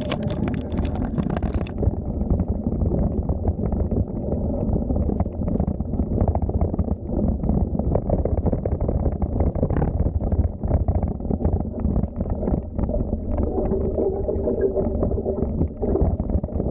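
Wind buffeting the microphone and the rumble of a moving bicycle: a continuous low noise whose loudness keeps fluctuating. A brighter hiss on top stops about two seconds in.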